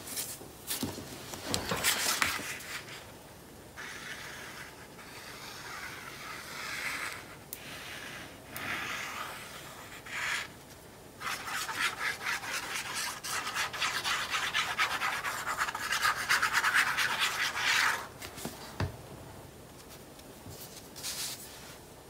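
Cardstock paper being handled, glued and pressed down on a cutting mat: short rustles, then scratchy rubbing in several stretches. The longest and loudest is a steady scratchy rub from about halfway until a few seconds before the end.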